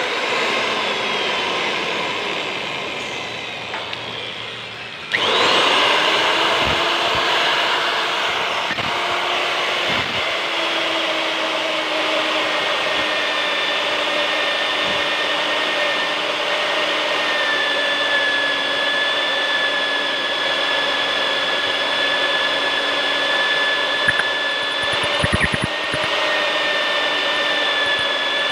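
Magnetic drill's motor running down with falling pitch, then switched back on about five seconds in and running steadily while it cuts a hole in thick steel plate. A few light clicks near the end.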